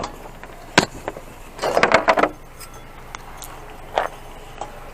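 Objects being handled: a sharp knock about a second in, a short clatter around two seconds, and another knock near four seconds.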